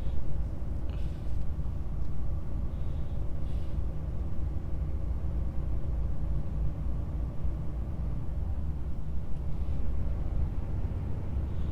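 DAF XF truck heard from inside the cab while driving: the diesel engine's steady low drone mixed with road and tyre noise.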